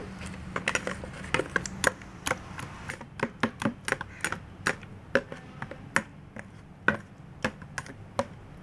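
A spoon clicking against the side of a bowl in quick, irregular taps as a thick yogurt-and-spice marinade paste is stirred. A low hum runs under it for the first few seconds.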